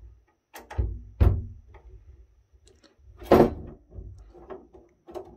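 Knocks and taps of a precision screwdriver and hands against the sheet-metal case of a Cisco Nexus 2248P switch as its side screws are taken out. There are three sharp knocks with a dull thud under them, two close together about a second in and one past three seconds, then a run of lighter taps.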